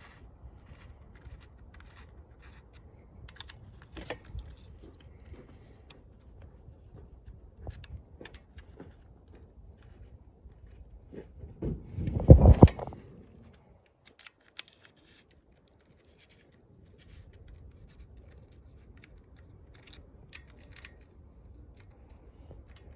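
Small scattered clicks and scrapes of a hand tool working the oil filter cover bolts on a Honda Fourtrax 300 ATV engine. A single heavy thump comes about halfway through, followed by a brief near-silent stretch.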